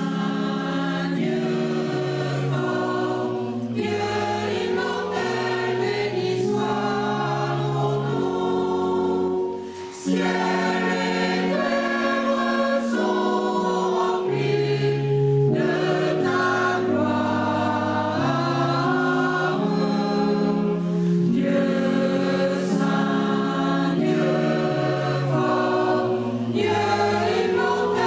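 A mixed choir of men and women sings a hymn in harmony, with a steady electronic keyboard accompaniment under the voices. The singing breaks off briefly just before ten seconds in, between phrases, then goes on.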